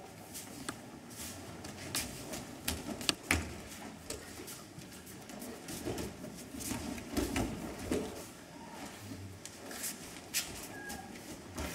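Feet stepping and sliding on tatami mats and bodies landing in breakfalls during aikido throws, heard as irregular dull thuds and slaps.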